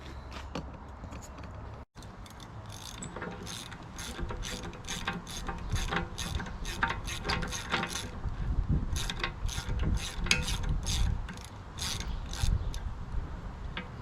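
Ratchet wrench clicking in runs of quick, even strokes with short pauses, loosening the retaining bolt on an excavator's quick-attach bucket.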